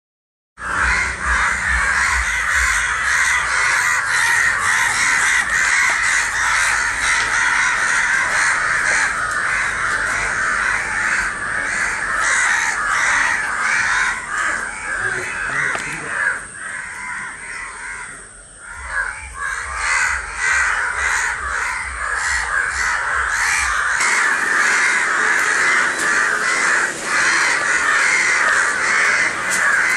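Many crows cawing at once in a dense, continuous chorus of harsh calls: the alarm crows raise around an injured crow fallen to the ground. The calling thins for a few seconds past the middle, then builds again.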